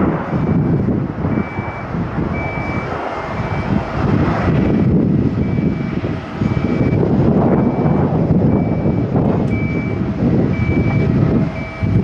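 Gusty low rumble of a jet airliner's engines on the runway mixed with wind on the microphone, while a ground vehicle's reversing alarm beeps steadily, a little faster than once a second.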